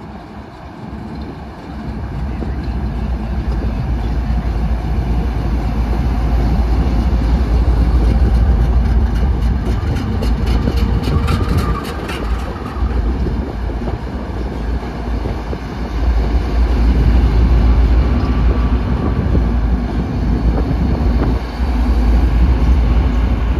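BNSF diesel-electric locomotives pulling a freight train pass close by with a deep engine rumble. It grows louder over the first few seconds as the lead units approach and go past, then carries on as the trailing units follow. A quick run of clicks comes through about halfway.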